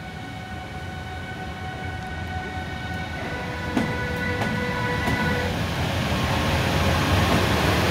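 Newag Dragon E6ACT six-axle electric locomotive approaching and passing at low speed. A low rumble of its running gear grows steadily louder, with several steady high whining tones from its electrics, and a single sharp clack about four seconds in.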